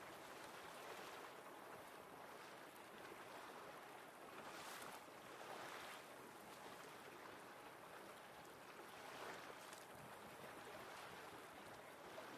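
Faint water wash and wind noise from a boat on calm harbour water, with soft swells of splashing about four and a half seconds in and again around nine seconds.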